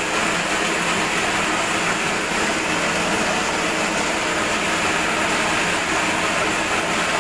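Plastic-waste shredder machine running with a loud, steady noise while plastic waste is pushed into its hopper.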